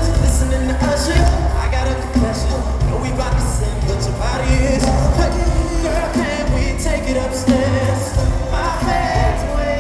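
Amplified live concert music: a singer's voice held and bending over strong, steady bass, recorded from within the audience.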